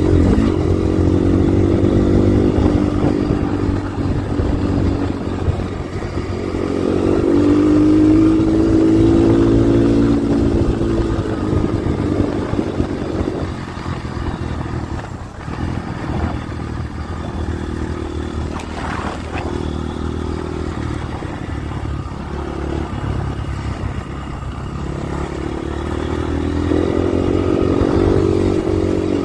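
GPX FSE 250E dual-sport motorcycle's single-cylinder engine running under way on a dirt road, revs rising and falling with the throttle. It is loudest about a quarter of the way in and again near the end, over steady wind and road noise.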